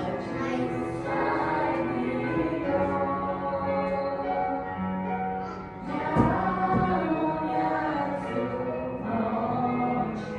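A choir singing with musical accompaniment, sustained voices in harmony, swelling briefly about six seconds in.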